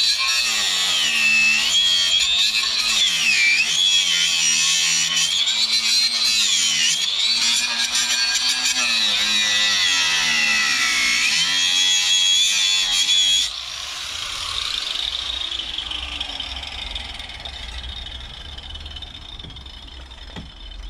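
Electric power saw cutting through pallet wood, its motor pitch dipping and recovering under load. It stops abruptly about thirteen seconds in and a quieter tone winds down after.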